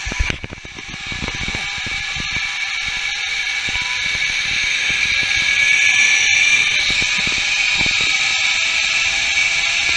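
Zip line trolley pulleys running along the steel cable: a steady high whine that slowly rises in pitch and grows louder as the trolley picks up speed. Wind rumbles on the microphone underneath, strongest about half a second in.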